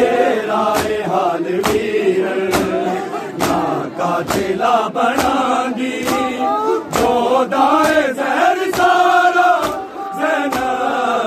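A chorus of men chanting a mourning noha in unison, with sharp, even beats a little more than once a second that fit matam, hands striking chests in time with the chant.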